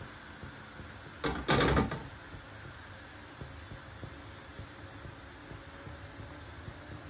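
Sugar syrup boiling hard around paneer balls in a pot, a steady bubbling hiss, with a brief loud two-part clatter about a second in.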